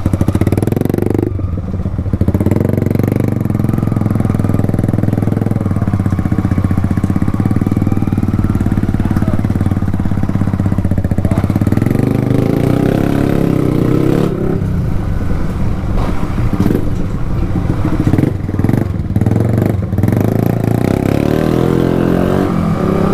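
Yamaha R15 V2's 150 cc single-cylinder engine running loud through an aftermarket Akrapovic exhaust with its dB killer removed, pulling steadily on the road. The throttle closes briefly about a second in and again a few times in the second half.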